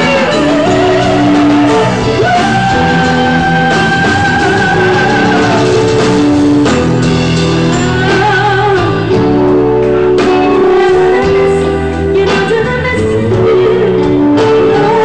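Live rock band playing: a woman sings into a microphone, holding long wavering notes, over drums and electric guitars.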